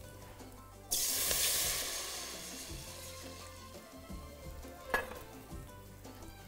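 Water poured into a pot of hot fat, butter and whole spices, bursting into a loud sizzle about a second in that slowly dies down. A single metal clink comes near the end.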